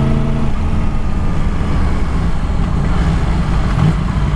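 Yamaha MT-10's crossplane inline-four engine, with Akrapovic exhaust, running as the bike rides along. Its clear, even engine note fades about half a second in, leaving a steady low rumble.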